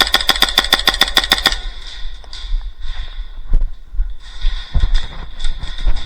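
Airsoft electric gun firing a full-auto burst at about ten shots a second, stopping about a second and a half in, followed by scattered single pops and knocks of airsoft fire.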